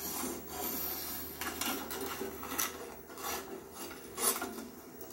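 Pages of a piano lesson book being grabbed, flipped and rustled, with scattered rubbing and handling noises in irregular bursts.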